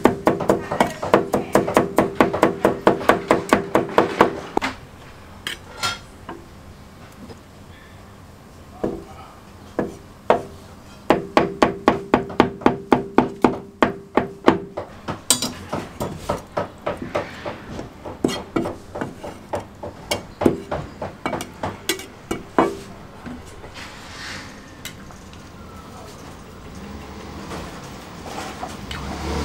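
Cleaver chopping on a thick wooden chopping block, cutting green peppers, then braised eggs and tofu. There are two fast runs of chops at about six a second, the first at the start and the second about eleven seconds in, with single chops between and after. The chopping stops about three-quarters of the way through.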